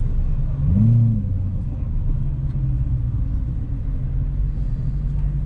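BMW E92 M3's 4.0-litre V8 running at low revs, heard from inside the cabin; about a second in the revs rise and fall once in a brief blip, then it drones on steadily.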